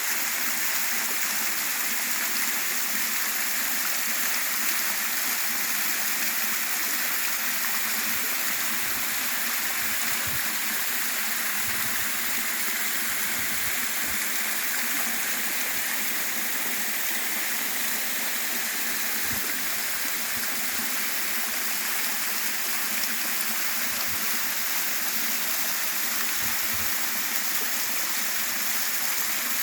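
Waterfall splashing steadily: a continuous, even rush of falling water.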